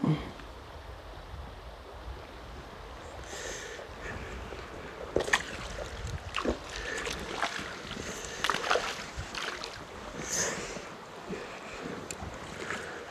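A small hooked brown trout splashing at the surface as it is played in and netted, over the steady rush of river water, with a run of irregular splashes from about five seconds in.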